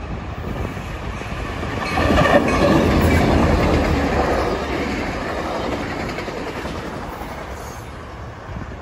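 Tri-Rail diesel commuter train with bilevel coaches passing close by at speed: a rushing rumble with wheels clicking over the rails. It jumps up sharply about two seconds in, then fades steadily as the train moves away.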